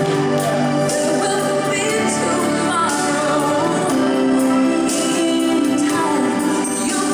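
A song playing: a singer holding long notes and gliding between them over sustained instrumental backing.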